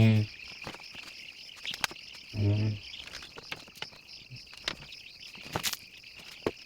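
Steady high chirping from a shed full of young broiler chicks. A man's voice gives two short low hums, one right at the start and one about two and a half seconds in, and there are a few light clicks.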